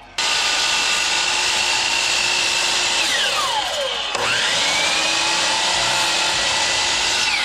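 Miter saw running, taking shallow depth-limited passes to cut a notch in a wooden post. About three seconds in the motor is released and the whine drops steeply as the blade winds down. A second later the saw is triggered again and spins back up. Near the end it is released and starts winding down once more.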